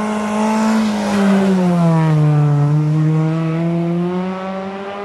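Rally car engine at high revs as the car approaches and passes close by. Its pitch falls about halfway through, then climbs again as it pulls away.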